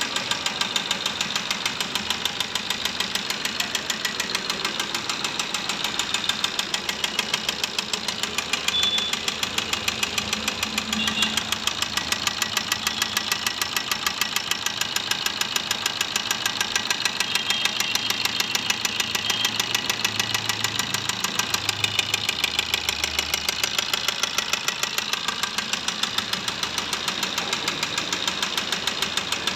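Maruti Suzuki Ertiga diesel engine running with a steady, rapid metallic knock. The mechanic puts it down to the connecting rod, from excessive play in a seized crankshaft: a purely mechanical fault that can break the engine block if the car is driven on.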